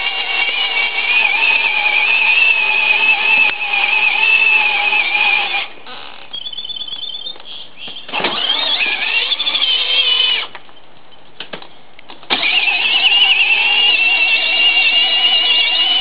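Electric drive motors and gearboxes of a battery-powered ride-on toy Hummer whining as it drives in mud, straining to move. The whine cuts off about six seconds in, comes back briefly with a rise in pitch around eight seconds, and starts up again about twelve seconds in.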